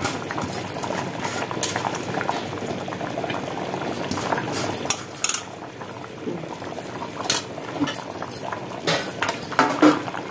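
Mutton curry bubbling in a metal pressure cooker pot, with a steel ladle clinking and scraping against the pot as crushed tamarind leaves are stirred in. The sharpest clinks come near the end.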